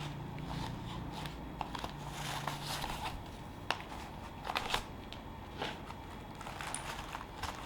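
Packaging of a new keyboard being handled during unboxing: light rustling and crinkling with scattered soft taps and clicks.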